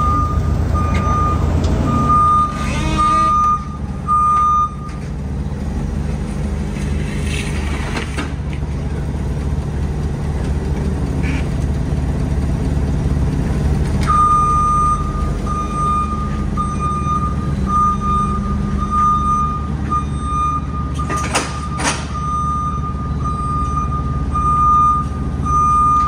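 Vehicle reversing alarm beeping at a steady pitch about once a second over a running engine. The beeping stops after about five seconds and starts again about halfway through, with two sharp clanks a little after it resumes.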